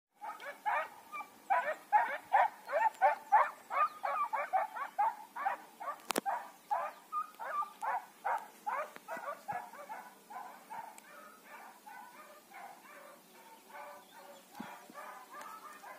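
Hounds baying on a hare's trail, a run of barks coming a few a second, loud at first and growing fainter over the second half.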